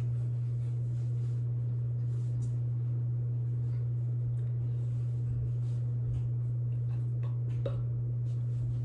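Steady low electrical-sounding hum of room tone, with a few faint soft knocks and rustles of someone moving on the floor about seven to eight seconds in.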